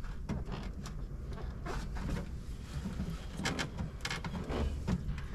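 Scattered clicks and knocks of hands working plastic panel parts and wire-harness connectors in a tractor cab, with a cluster of quick clicks a little after three seconds in.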